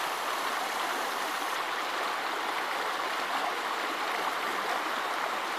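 Partly frozen brook running steadily over rocks between shelves of ice.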